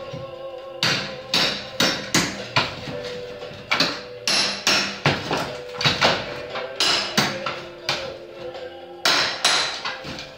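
Hammer blows knocking apart a wall during demolition, sharp irregular strikes a little under two a second. Music plays underneath.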